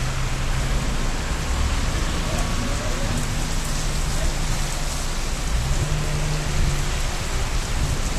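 Steady downpour of thunderstorm rain, an even hiss of rain hitting surfaces.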